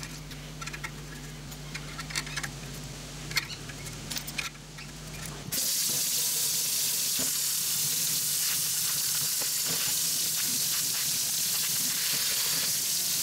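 A few light clicks as aluminium parts are taken off a rack over a low hum, then about five seconds in a kitchen tap runs steadily into a stainless steel sink, rinsing the freshly anodised aluminium parts in a wire basket.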